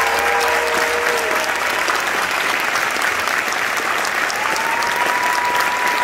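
Large audience applauding steadily, with a few long drawn-out cheers over the clapping.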